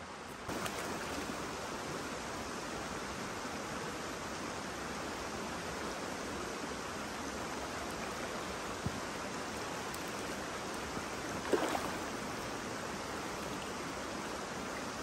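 Shallow rocky stream flowing steadily over stones. A brief pitched sound stands out about two-thirds of the way through.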